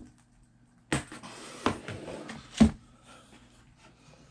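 Handling noise from a metal-plated replica championship belt: a rustle with three sharp knocks about a second apart, the last the loudest.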